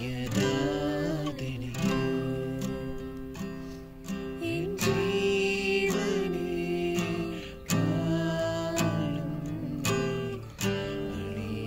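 An acoustic guitar is strummed while voices sing a Christian worship song along with it.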